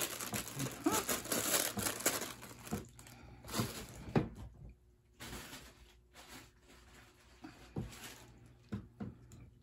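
Crinkling and rustling as kittens scrabble at a crinkly fabric cat tunnel and a wand toy. It is dense for about the first three seconds, then thins to scattered rustles and light knocks.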